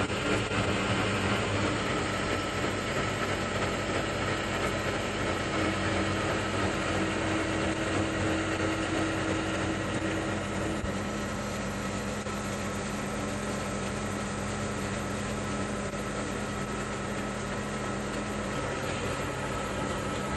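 Steady mechanical running noise from a machine, with a constant low hum and a faint high tone that hardly change.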